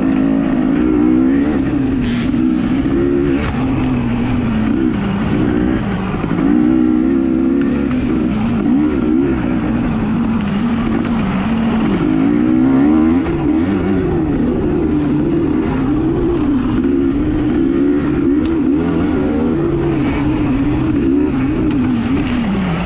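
A racing engine running hard, its pitch rising and falling every second or two as it is revved up and backed off again and again.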